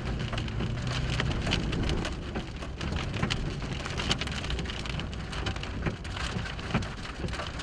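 Heavy rain hitting a car's roof and windshield: a steady wash of rain full of sharp individual drop impacts, with a low engine hum under it for the first second or so.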